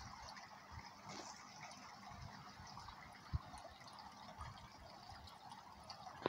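Faint trickling and dripping of water in a garden pond, with a single soft knock about halfway through.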